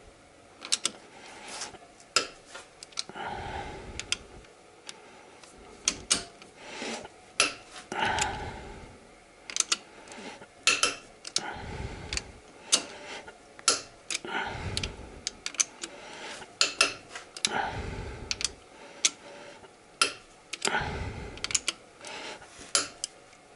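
Cylinder head bolts on a VAZ 21126 engine being broken loose one after another with a socket wrench on an extension: scattered sharp clicks and knocks of the wrench and socket, with the worker's heavy breathing close to the microphone between them. This is the first loosening pass, each bolt turned only about ten degrees.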